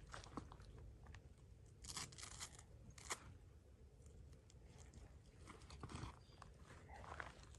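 Near silence broken by faint scattered rustles and crunches, with a few sharper clicks.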